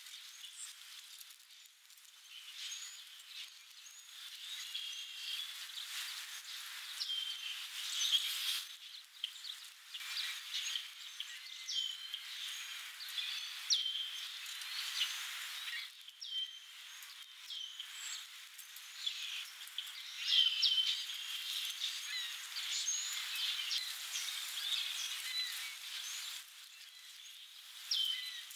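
Small birds chirping and calling in the background: many short, high chirps, over a steady hiss.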